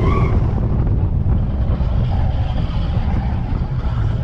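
Seven Dwarfs Mine Train roller coaster cars running along the track at speed, a steady low rumble of the wheels on the rails with wind on the microphone.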